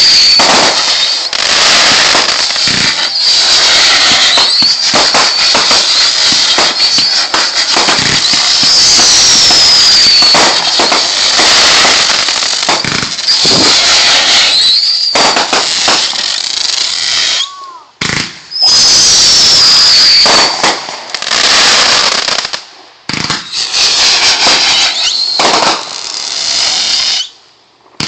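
Fireworks going off in a loud, nearly continuous barrage of dense crackling and popping, with shrill whistles that keep gliding in pitch, mostly falling. The barrage breaks off briefly a few times in the second half.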